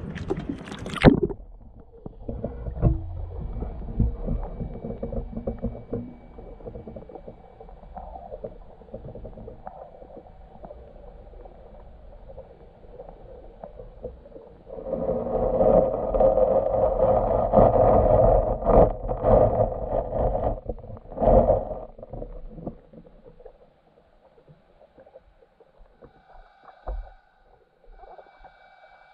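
An underwater camera dips into a lake with a splash about a second in, and from then on the sound is muffled by the water: dull knocks and handling noise on the camera housing, with a louder stretch of churning noise from about fifteen to twenty-two seconds.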